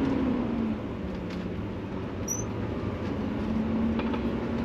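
Motorhome running at low speed, heard from inside the cab: a steady low engine drone with a hum whose pitch drops slightly about a second in and rises again near the end.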